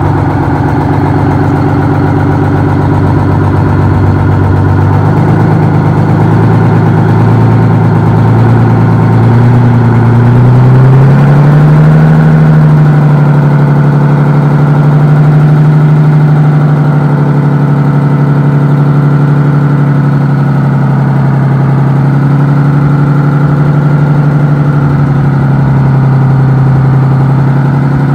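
Supercharged V12 two-stroke Detroit Diesel 12V71 in a Wabco Haulpak dump truck running loud. Its engine speed climbs over several seconds, from about five seconds in to about twelve, then holds steady.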